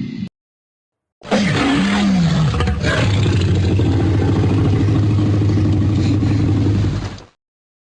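Tyrannosaurus rex roar sound effect: one long roar of about six seconds starting a second in, opening with a growl that swoops in pitch, then holding a steady low roar before it cuts off.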